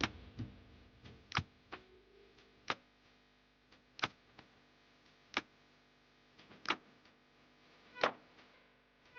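Sharp, evenly spaced ticks, about one every 1.3 seconds, seven in all, like a slow clock or metronome.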